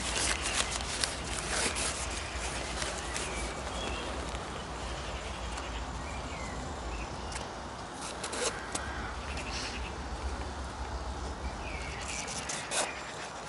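Hands handling an Ogio nylon backpack: fabric rustling and straps being worked, with short clicks from the plastic buckles and strap adjusters, busiest in the first couple of seconds, again about eight seconds in and near the end. A steady outdoor hiss and low rumble lies underneath.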